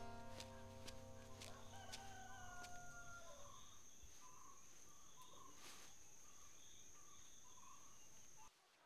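Faint rural dawn ambience: a rooster crowing once, with a steady high insect whine and soft repeated bird chirps, all cutting off abruptly near the end. Plucked string music fades out in the first few seconds.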